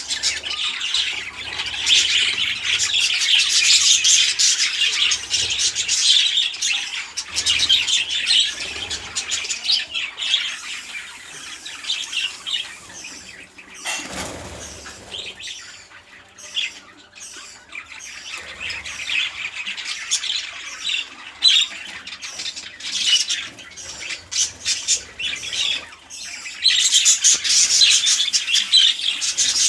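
A flock of budgerigars chattering and squawking, heavy at the start and again near the end and thinner in the middle, with a brief rustling noise about halfway through.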